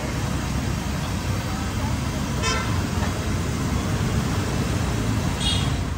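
Steady roadside traffic noise mixed with the hiss of jalebi frying in a wide kadai of hot oil. Two short vehicle-horn toots come about two and a half and five and a half seconds in.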